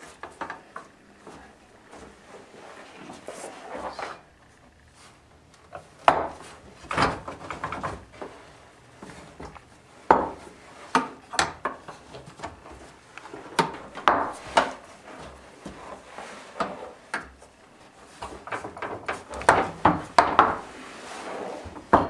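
Small wooden blocks being set one after another into an aluminium ski-building setup rig: wood knocking and clattering against the metal rails in irregular sharp knocks, with clusters of them about six, ten, fourteen and twenty seconds in.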